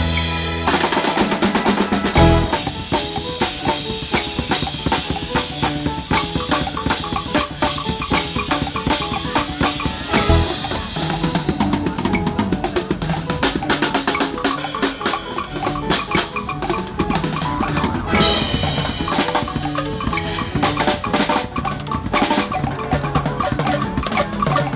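Two acoustic drum kits played together, with bass drum, snare and cymbal hits keeping a steady groove over a recorded backing track with bass and other pitched parts.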